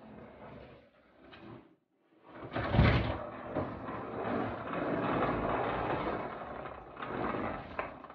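A heavy plastic storage tote being pushed and slid across a hard floor: a loud thump about three seconds in, then several seconds of steady scraping.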